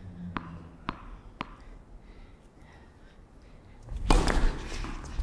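Tennis ball bounced three times on a hard court, about half a second apart, before a serve. About four seconds in comes the serve: a loud racket hit with a rush of noise.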